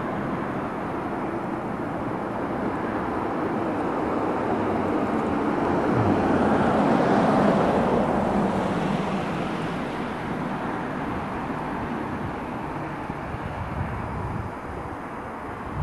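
A vehicle passing by, a rushing noise that slowly swells to a peak about halfway through and then fades away.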